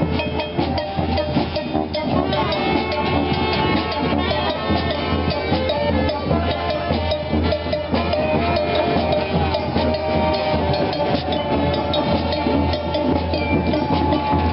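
Brass street band playing, horns over a steady drum beat.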